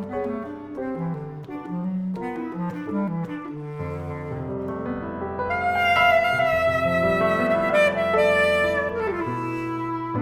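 Bass clarinet and piano playing a jazz duo. A line of short notes in the first few seconds gives way to a long held high note on the bass clarinet from about halfway, over a sustained low note; the held note bends downward near the end.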